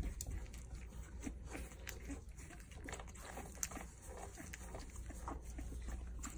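A litter of 4.5-week-old puppies moving about and making small grunts and squeaks, with scattered light clicks and scrabbling.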